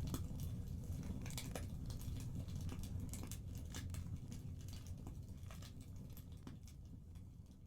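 Crackling fireplace fire: irregular pops and snaps over a low rumble, fading out toward the end.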